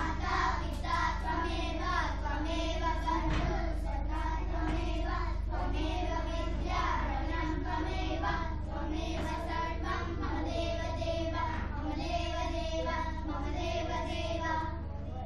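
Children singing a song, with long held notes.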